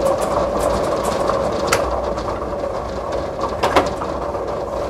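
Ball draw machine running: motor-driven paddles spin inside a clear drum, tumbling numbered balls with a steady whirr and rattle. Two sharper clacks come about two seconds apart.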